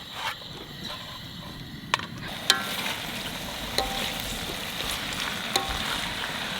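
Dak-galbi (spicy stir-fried chicken) sizzling in a hot pan. The sizzle grows louder and steady after a sharp click about two and a half seconds in, with a few light clicks later on.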